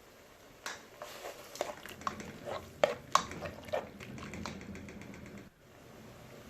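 A quick run of sharp clinks and knocks from utensils and a pot, about a dozen over three seconds, as crayfish and water go into the pot, followed by a softer steady noise.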